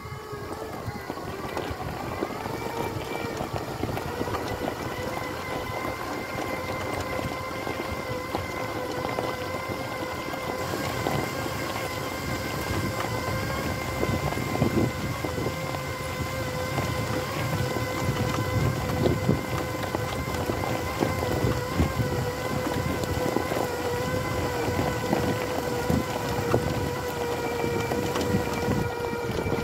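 Magic Mobility Extreme X8 four-wheel-drive power wheelchair driving steadily: its electric drive motors give a steady whine of several pitches, over the crunch of its knobby tyres rolling on loose gravel.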